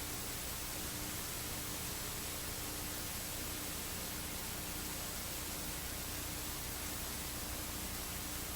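Steady hiss of static, even and unchanging, with a faint low hum under it.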